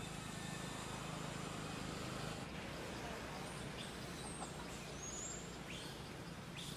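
Steady outdoor background noise with a low hum underneath. A few short, high chirps or squeaks come in the second half.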